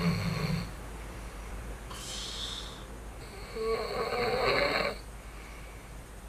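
A man snoring in his sleep while wearing a nasal anti-snoring plug that is not stopping it; his airway blocks as he breathes in. One snore ends just after the start, a hissing breath comes about two seconds in, and a louder snore follows around four to five seconds in.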